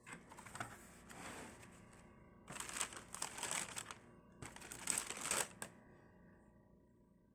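Rustling and crinkling of shoebox packaging being handled, in three bursts of a second or so each.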